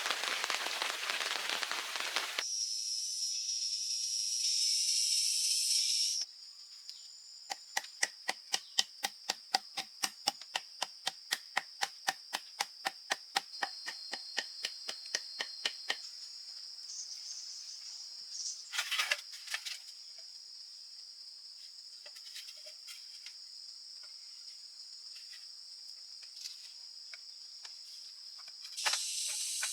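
Rain-forest insects drone at one steady high pitch. From about six to sixteen seconds in, a run of sharp, evenly spaced knocks comes about three times a second. A broad hiss fills the first couple of seconds and returns near the end.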